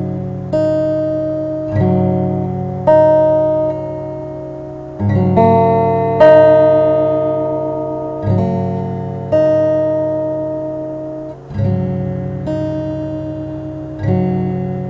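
Background music: slow acoustic guitar chords, each strummed and left to ring out before the next.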